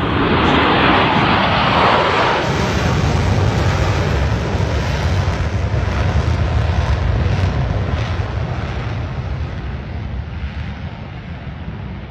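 Jet engine roar from a Blue Angels F/A-18 Super Hornet's twin turbofans as the jet flies past. It is loudest about a second or two in, then slowly fades.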